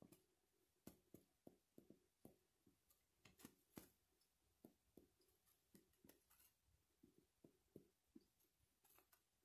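Near silence broken by faint, scattered clicks and rubs of fingers handling a Moen 1225 plastic shower valve cartridge while an O-ring is worked onto it.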